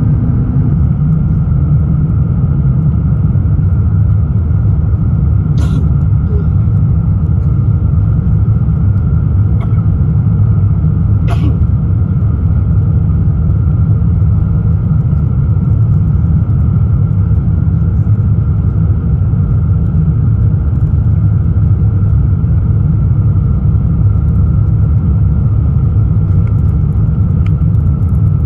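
Airbus A350-1000 airliner heard from inside the economy cabin: a loud, steady deep rumble of engine and airflow noise, with two short clicks, one about six seconds in and one about eleven seconds in.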